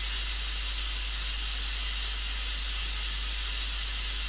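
Continuous white-noise test signal from a loudspeaker: an even, steady hiss, strongest in the upper range, with a steady low hum underneath.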